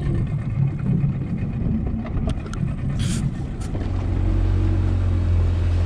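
Outboard motor of a small open fishing boat running, a low rumble that settles into a louder, steady drone about four seconds in as the boat gets under way. A few sharp knocks and a brief hiss come between two and three seconds in.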